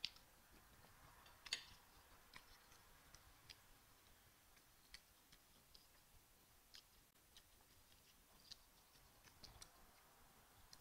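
Faint mouth sounds of a person chewing a spoonful of rice and beans: scattered small, sharp wet clicks and smacks at an uneven pace. The loudest come right at the start and about a second and a half in.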